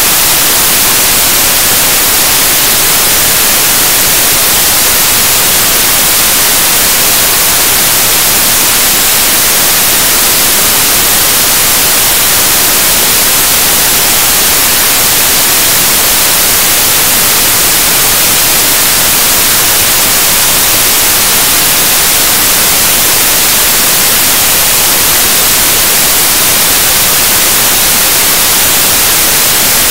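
Loud, steady static hiss, like white noise, with no speech or other sound coming through.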